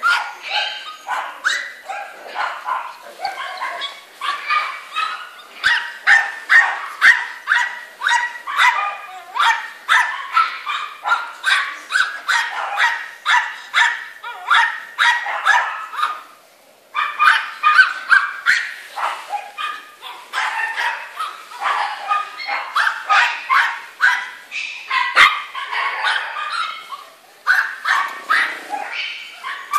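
Small dogs yapping almost without a break: rapid, high-pitched barks, two or three a second, with a short pause about halfway.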